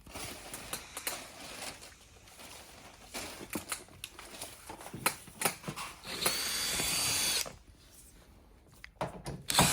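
Small clicks and knocks of tools and parts being handled, then an electric screwdriver running for about a second and a half, backing out screws holding the display's AD board. Another run starts right at the end.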